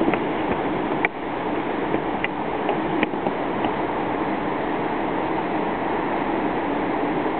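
Steady rushing of a river running below, with several faint short clicks in the first few seconds.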